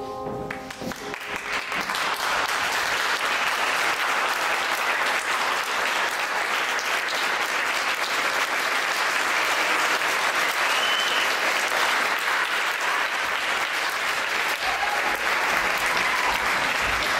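Theatre audience applauding: the clapping starts as the closing music ends and builds within a couple of seconds to steady, sustained applause.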